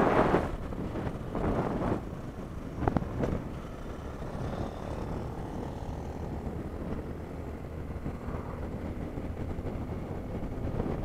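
Motorcycle running at road speed on a highway, engine drone mixed with wind rushing over the bike-mounted camera's microphone.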